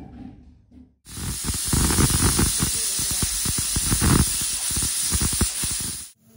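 Pressure cooker whistle blowing: steam venting at full pressure in a loud, continuous hiss, with a fast sputtering rattle underneath. It starts abruptly about a second in and cuts off just before the end.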